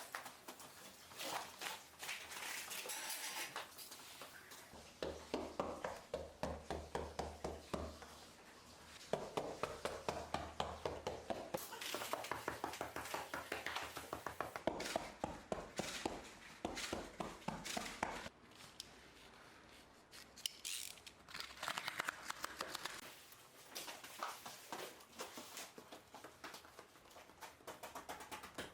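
Runs of quick light taps and clicks, several a second, with rustling and scraping between them: foam floor mats being handled and fitted into place.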